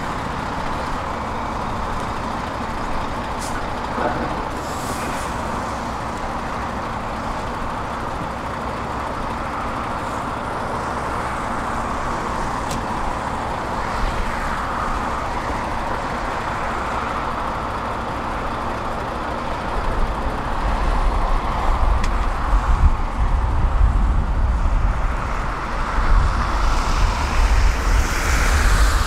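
Diesel engines of a Hitachi 225 USR excavator and a Volvo truck running steadily. From about twenty seconds in, a heavier low rumble comes in and rises and falls unevenly.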